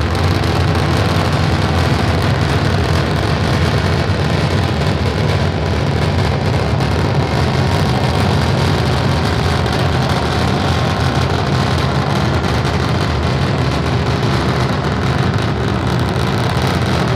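Steady low rumble of Starship SN10's three Raptor rocket engines firing during ascent.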